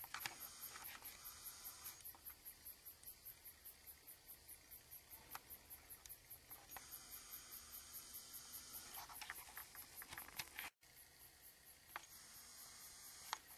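Crickets chirping faintly in the field grass, a rapid, even pulsing of about four chirps a second, with the sound cutting out for an instant about three-quarters of the way through.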